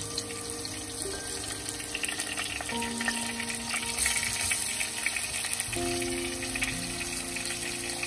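Spice-coated red mullet pieces sizzling as they fry in hot oil in a clay pot, the sizzle louder about four seconds in.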